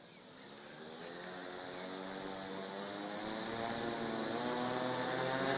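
Small electric quadcopter's four propellers spinning up and lifting off, a buzzing drone that grows louder over the first couple of seconds and then holds steady in a hover, with a thin high whine above it.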